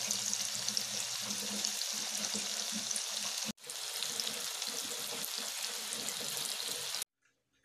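Tofu cubes frying in hot oil in a pan: a steady sizzle with many small crackling pops, cut off briefly about three and a half seconds in and stopping near the end.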